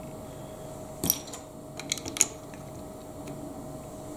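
Plastic Lego pieces clicking and tapping as a plate is pressed onto the model: a short cluster of small, sharp clicks between about one and two and a half seconds in, the first the loudest, over a faint steady hum.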